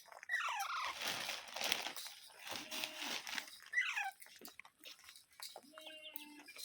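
Pet parrot giving short calls that slide down in pitch, one about half a second in and another about four seconds in, with a rustling, crunching noise between them.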